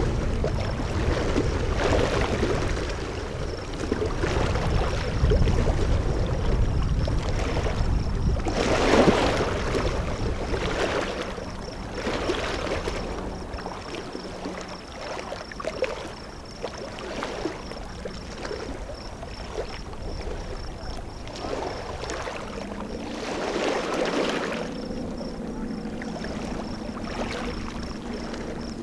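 Wind buffeting the microphone and water lapping, with soft irregular splashes every second or two. The wind rumble is heaviest in the first third. A low steady hum comes in about two-thirds of the way through.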